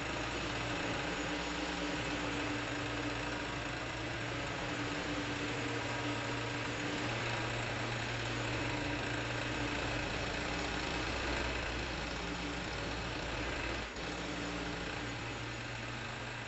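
An engine idling steadily, with a brief dip in level near the end.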